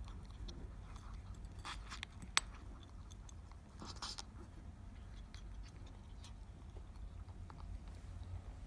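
Sleeping ferret snoring faintly, in short bursts with scattered small clicks, and one sharp click about two and a half seconds in.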